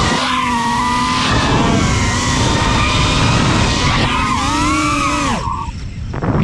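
5-inch FPV racing quadcopter's brushless motors (T-Motor Pacer 1950KV on 6S) and propellers whining, the pitch rising and falling with throttle over a rush of air. About five seconds in the throttle is chopped: the whine falls steeply in pitch and the sound drops off briefly before it picks up again.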